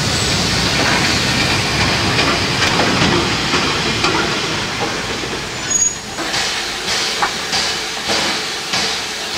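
Metre-gauge steam train passing close by: the locomotive and coaches rumble along with steam hissing. After about six seconds the rumble eases and sharp knocks come about twice a second over the steam hiss.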